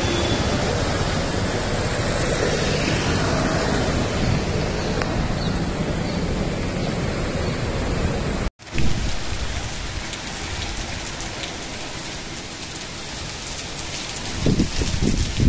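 Steady noise of heavy rain and water. It drops out abruptly a little past halfway and comes back as a downpour with a light pattering of drops, with a few low thuds near the end.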